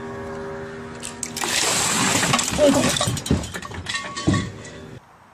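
Ice water tipped from a pot splashing and pouring over a man, with his gasps and yells through the splash, preceded by a long steady held tone. It cuts off suddenly near the end.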